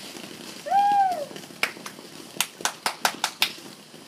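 Ground fountain firework spraying sparks with a steady hiss, then a run of about eight sharp crackling pops in the second half. A short, high-pitched call that rises and falls comes about a second in.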